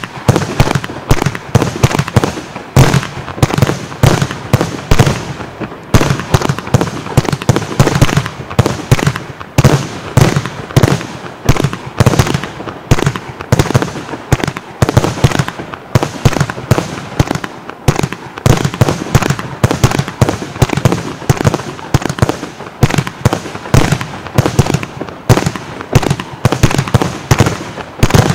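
Heron 11-03A (PSP 3-3A) consumer firework cake firing shot after shot, a few each second without a pause: the crack of each tube launching and the bangs of the shells bursting overhead.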